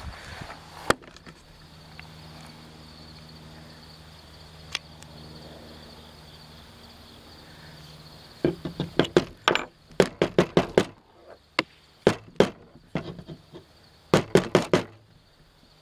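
Sharp clicks and knocks: a single one about a second in, then a rapid, irregular run of them through the second half, over a low steady hum.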